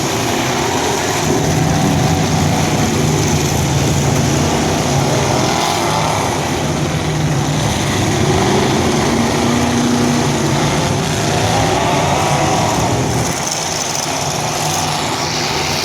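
Engines of several demolition derby vehicles running loudly together, their pitch rising and falling as they rev.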